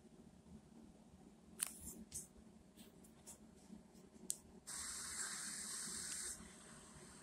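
A few faint clicks, then a steady hiss that starts about halfway through, lasts under two seconds and cuts off suddenly.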